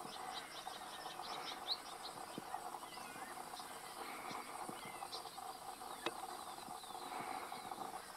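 Outdoor ambience of a steady insect chorus, with small birds giving a quick run of high chirps in the first two seconds and a few sliding calls after. A single sharp click about six seconds in.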